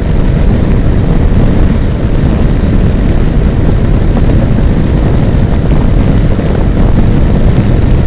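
Heavy wind buffeting on the microphone at around 120 km/h, mixed with the steady drone of a Yamaha NMAX 155 scooter's single-cylinder engine, which is fitted with a modified exhaust. The rider calls the wind strong.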